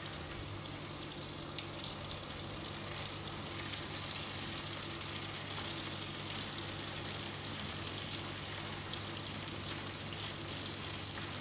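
Frying oil sizzling steadily in a pan as it heats with half a lemon and salt in it, over a steady low hum. The oil is not yet hot enough for frying potatoes.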